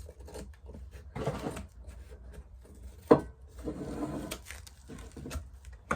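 Paper and cardboard being trimmed and handled: two stretches of rustling and scraping, scattered small clicks, and one sharp click about three seconds in.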